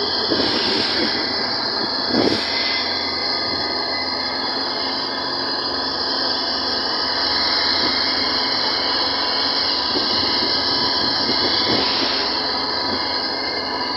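Steady running noise of an open-sided passenger vehicle on a road: engine, body rattle and rushing air. A short knock from a jolt about two seconds in.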